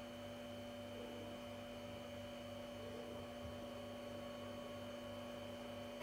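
Faint, steady electrical hum with a soft background hiss, holding at one level.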